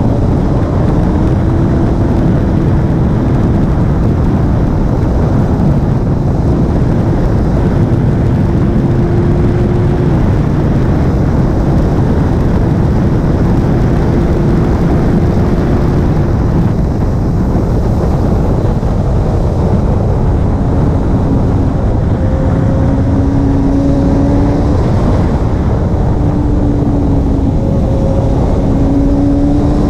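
Racing motorcycle engine running hard at high revs under a heavy rush of wind on the onboard microphone. Its pitch holds high with small rises and falls as the throttle changes, dipping briefly past halfway before climbing again.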